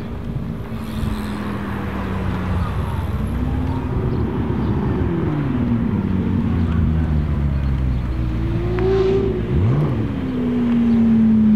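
Lamborghini Aventador's V12 with a straight-pipe Akrapovic exhaust running and revving among other engines, its pitch rising and falling several times. There is a quick blip about nine and a half seconds in, and a held note growing louder near the end.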